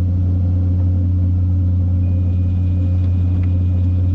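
A fishing boat's engine running with a steady, even low hum.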